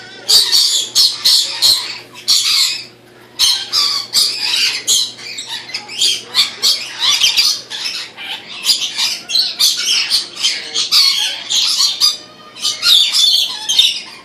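A flock of lorikeets screeching: many short, shrill calls overlap almost without pause. There is a brief lull about three seconds in and another near the end.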